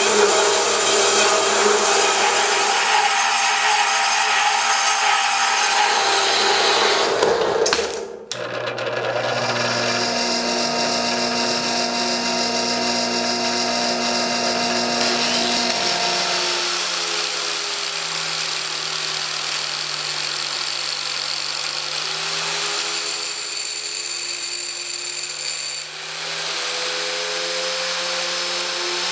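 Power tools running during metalwork: a steady motor whine with grinding or cutting noise. The tool's pitch changes abruptly about 8 and 16 seconds in, and wavers a little near the end.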